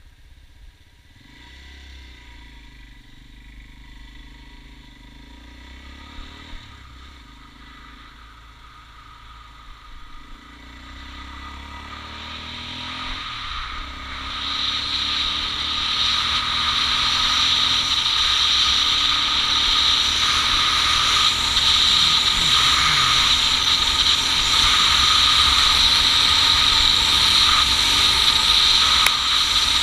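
Motorcycle engine running under way, its pitch climbing through the gears. From about halfway in, loud wind and road rush builds and drowns it as speed rises.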